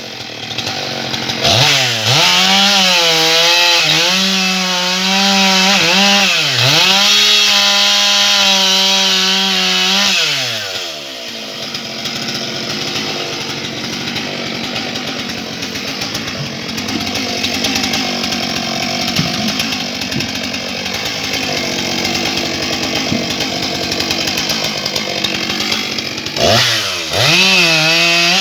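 Stihl MS 661 C-M two-stroke chainsaw, a 91 cc professional saw, revving at high speed with a few brief dips in pitch. About ten seconds in it drops back to a lower, rougher running, then revs up high again near the end.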